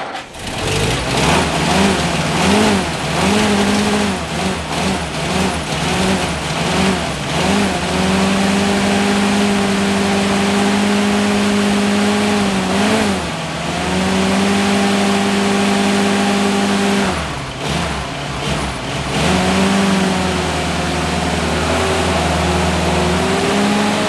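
WW2 jeep's four-cylinder flathead engine starting and running, uneven for the first few seconds, then settling into a steady idle. The engine speed sags briefly about halfway through and again about three-quarters of the way through before picking back up.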